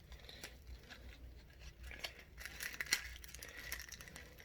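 Packets of edible crickets and larvae being opened and handled: plastic crinkling and tearing with scattered light clicks, busier in the second half.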